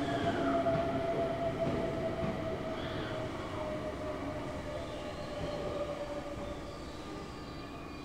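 Tokyu electric train's early VVVF inverter and traction motors whining over the running noise: one steady tone slowly falling in pitch while the sound gradually fades.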